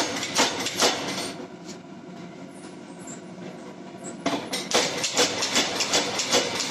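Power hammer striking a red-hot Damascus steel bar with sharp metallic blows, about two a second, then stopping for about three seconds with a steady hum underneath. The blows resume about four seconds in, faster, about four a second.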